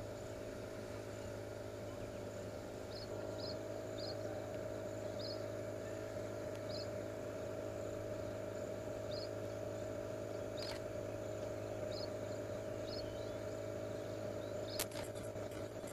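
Insects chirping at night: short, high chirps every second or so over a steady hum, with a sharp click near the end.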